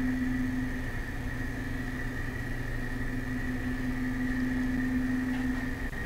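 Steady background machinery hum: a low drone with a thin high whine above it.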